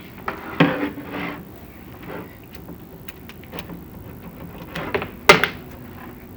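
Irregular scrapes and knocks of a chimney inspection camera bumping against the clay flue tiles as it moves down the flue. There is a rough scrape about half a second in and a single sharp knock near the end.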